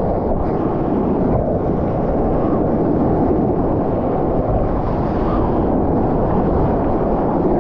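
Water rushing and sloshing around a GoPro at the surface, mixed with wind buffeting its microphone: a steady, loud, low wash.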